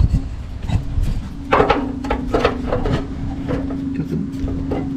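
A quick series of knocks and handling noises in a truck bed, with a steady low hum from about a second and a half in.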